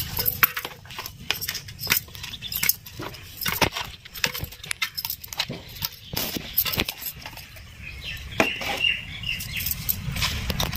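Hands mixing raw prawns with salt, chilli powder and turmeric, giving quick, irregular wet squelches and clicks.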